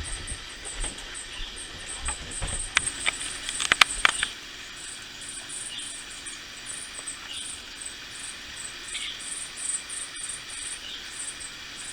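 Crickets chirping in a steady run of short, high-pitched pulses. A short cluster of sharp clicks and knocks comes about three to four seconds in.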